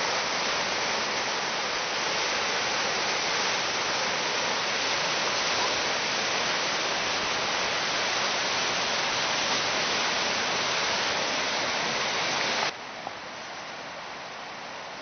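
River in high water rushing through rapids: a steady, loud rush of white water. It cuts off suddenly near the end, leaving a much quieter background.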